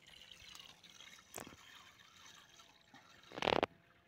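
Dry rice poured from a plastic bag into a pot of water on a campfire: a soft trickling pour of grains into water. A short, loud burst of noise comes about three and a half seconds in.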